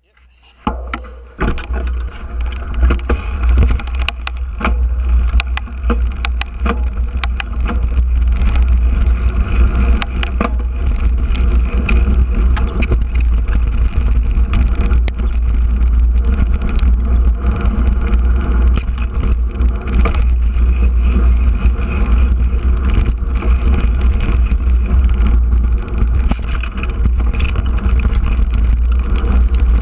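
Mountain bike riding fast down a dirt trail, heard from a camera on the moving rider: heavy wind rumble on the microphone, with the rattle and many sharp knocks of the bike over the rough ground.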